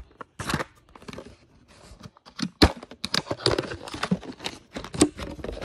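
Clear plastic packaging holding blue butt splice connectors being opened and handled: irregular crinkling with sharp clicks.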